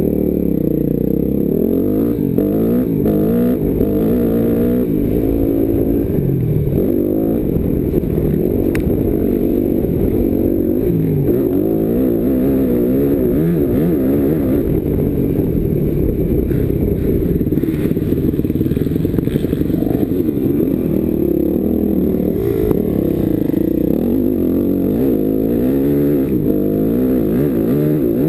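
Motocross bike engine revving up and down, rising and falling in pitch as the bike is ridden over a dirt track.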